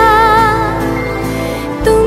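Background music: a slow, tender song with a held, wavering melody note that fades out shortly before the end, followed by a brief dip and then the start of a new phrase.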